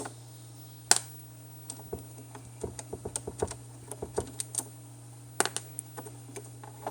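Scattered small clicks and taps of a plastic mass airflow sensor and its Torx screws being handled as the sensor is pulled out of the intake, over a steady low hum.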